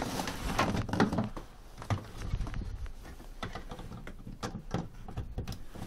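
Scattered small clicks and knocks of hands handling test leads, clips and meters on a car battery.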